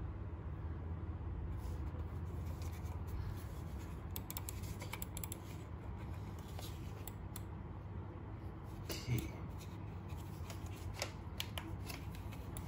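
Scattered light clicks and scratches of a plastic wired computer mouse being handled and turned over in the hands, over a low steady hum.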